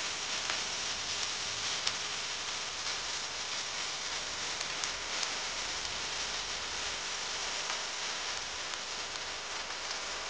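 Curry paste and chopped garlic frying in hot oil in a pan: a steady sizzle with scattered small pops and crackles.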